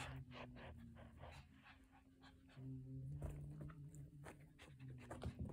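A Pomeranian panting quickly, about four breaths a second, pausing about a second and a half in and starting again; the panting is a sign of stress from the thunderstorm. A low steady tone comes and goes under it.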